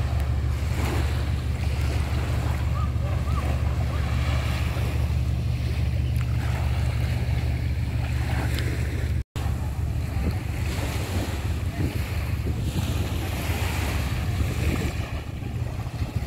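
Wind buffeting the microphone with a steady low rumble, over small waves lapping on a sandy beach. The sound drops out for an instant about nine seconds in.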